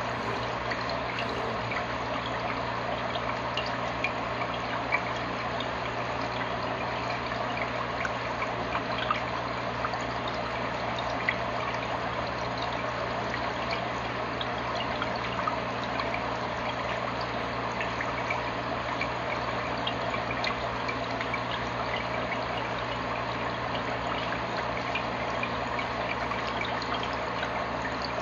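Aquarium filter water trickling and splashing steadily into the tank over a low steady hum, with scattered small ticks.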